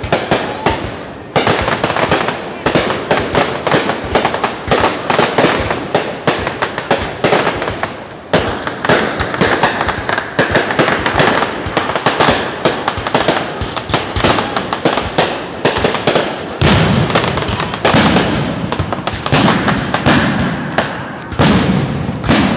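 Fireworks display: a rapid, unbroken barrage of bangs and crackles from aerial shells bursting one after another. About three-quarters of the way in, deeper, heavier bangs join the crackle.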